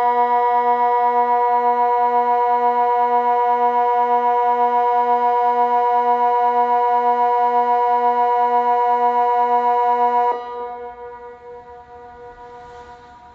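Electronic multi-horn civil-defence siren holding one steady low chord with a slight pulse, the Swiss Water Alarm signal that warns of danger below a dam. The tone cuts off abruptly about ten seconds in, and its echo fades away.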